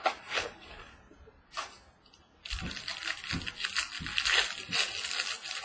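The wrapping of a trading card mini box being torn open and crinkled by hand. A few short rustles come first, then dense crackling and tearing from about two and a half seconds in.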